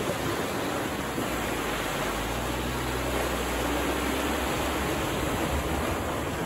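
Suzuki Jimny wading through a muddy pond: steady rushing and splashing of water pushed by its bow wave and churned by its wheels, with the low hum of its engine underneath.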